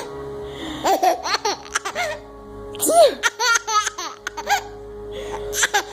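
Baby laughing in repeated bursts of giggles, over steady background music.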